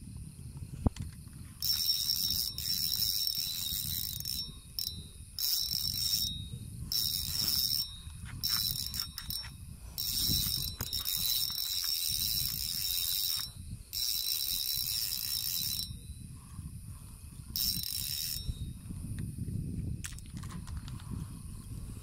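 A fishing reel's drag buzzing in repeated bursts of one to three seconds as a hooked fish pulls line off against it.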